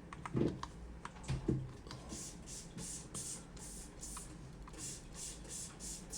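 HyperX Pudding plastic keycaps being handled and fitted onto a mechanical keyboard. Two dull knocks come in the first second and a half, then soft clicks and rustling strokes about three a second.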